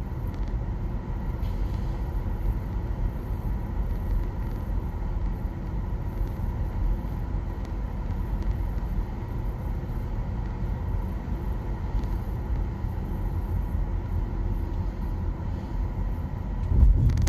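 Steady road and tyre rumble heard inside the cabin of a moving 2021 Nissan Leaf electric car with the windows shut, with a faint steady high tone over it. A louder low rumble swells briefly near the end.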